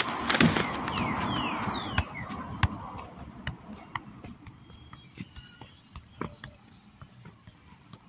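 A football being juggled with the feet: a run of short, irregular thuds of foot on ball, roughly two a second, growing fainter toward the end.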